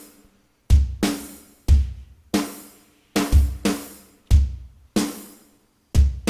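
Drum-kit music: bass drum and snare hits in a loose beat, each ringing out briefly.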